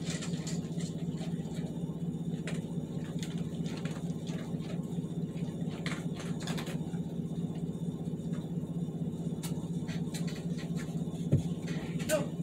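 Steady low hum with scattered light clicks and taps, and a single thump about eleven seconds in.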